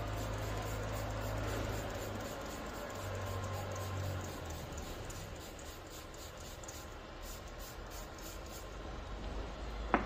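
A steady low hum that stops about halfway through, under faint handling noise, then a single sharp tap near the end as a small bottle is set down on the table.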